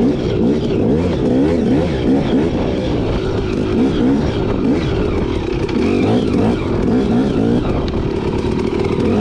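Off-road motorcycle engine under hard riding, its pitch rising and falling about twice a second as the throttle is opened and closed.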